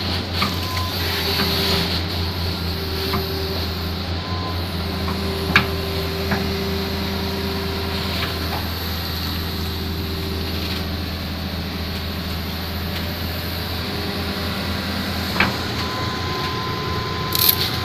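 Heavy diesel engines of a flatbed truck and the excavator riding on its bed running steadily in a low hum, with a faint tone that comes and goes as the excavator works its arm. A few short sharp clicks or knocks stand out, one near the middle and two near the end.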